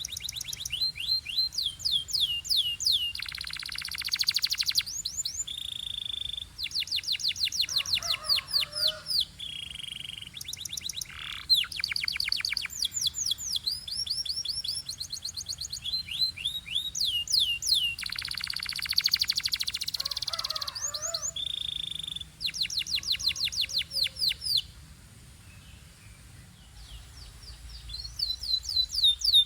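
Domestic canary singing: fast trills of repeated down-sweeping notes alternating with buzzy rolls, with a short lull about 25 seconds in before the song picks up again.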